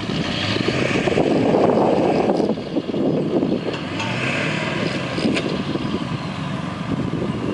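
Vehicle engines running, louder for the first couple of seconds and then settling to a steadier run.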